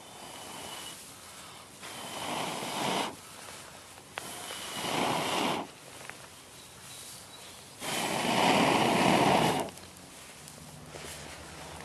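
Three long breaths blown into a dry grass tinder bundle around a char cloth ember to bring it to flame, each a rushing hiss. The third is the loudest and longest.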